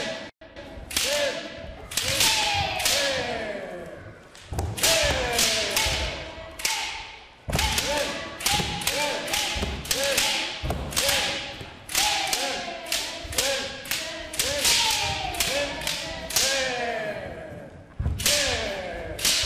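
Bamboo kendo shinai clacking sharply against one another in quick, irregular series as several pairs strike at once, the clacks ringing in a reverberant hall, with low thuds of stamping bare feet on the wooden floor among them.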